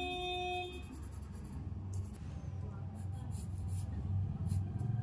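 Pencil sketching on paper: a series of short scratchy strokes as lines are drawn. A steady tone sounds in the first second and then stops.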